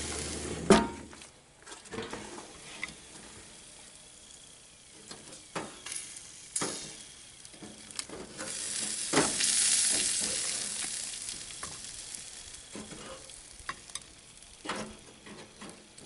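Beef steaks sizzling on a gas grill, the sizzle swelling about halfway through, with sharp clacks of metal tongs knocking against the grate as the steaks are handled and lifted off. The loudest knock comes about a second in.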